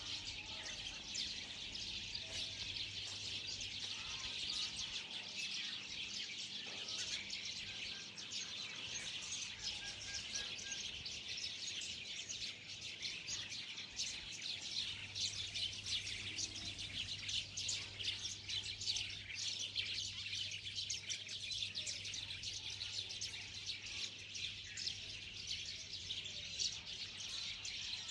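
A dense chorus of many small birds chirping and calling, with quick overlapping chirps that never stop, over a faint steady low hum.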